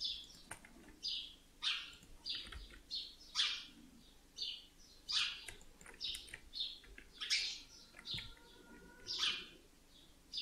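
A bird chirping over and over, short high calls coming about once a second.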